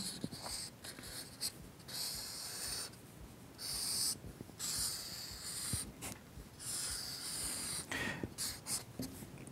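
Felt-tip marker drawing on flip-chart paper: a run of scratchy strokes, each about a second long, with short pauses between them as lines are drawn.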